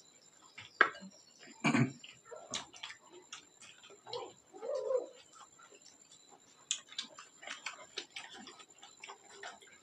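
People eating with their hands at a table: many small smacking and chewing sounds and light clicks of fingers and dishes, irregular throughout, with a couple of brief muffled sounds about four to five seconds in.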